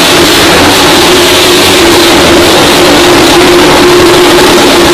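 Motorcycle engines held at steady high revs as the bikes circle the vertical wooden wall of a well of death, very loud with a constant drone.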